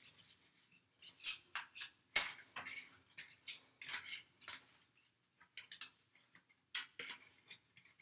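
A deck of tarot cards being shuffled by hand: faint, irregular soft slaps and rustles of the cards, several a second, thinning out a little past the middle.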